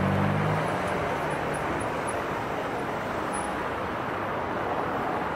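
Steady road traffic noise from cars and coaches circling a large roundabout. A low engine hum fades out within the first second.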